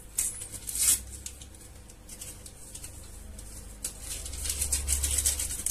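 A small sachet of vanilla sugar being torn open and handled: short crinkling rustles, a couple of sharper ones in the first second and a quick run of them near the end.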